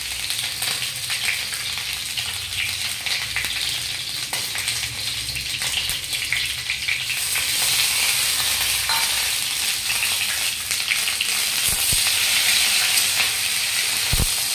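Cauliflower florets frying in hot mustard oil in an iron kadhai: a steady sizzle, with the light scrape and tap of a steel spatula. About halfway through, boiled potato pieces are tipped into the pan and the sizzle gets louder.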